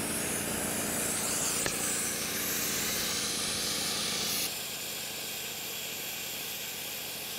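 Sandblaster nozzle blasting abrasive sand onto a flat steel plate: a steady, loud hiss of compressed air and grit, stepping down a little about four and a half seconds in.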